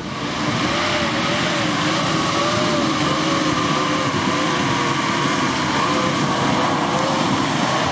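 Off-road 4x4's engine working under load as the vehicle crawls up over rocks, its revs wavering up and down unevenly.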